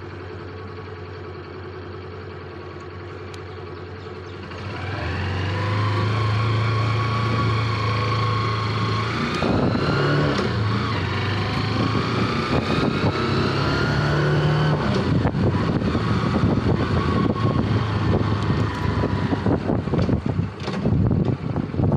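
Motorcycle engine idling, then about four seconds in it gets louder and rises in pitch as the bike accelerates away. From about halfway through, wind buffets the microphone while the engine runs under it.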